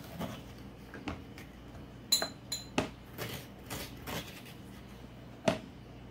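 Metal spoon scraping and tapping as it scoops seeds out of a halved honeynut squash. Scattered soft scrapes are broken by sharp clinks: two ringing ones a little after two seconds in and another sharp tap near the end.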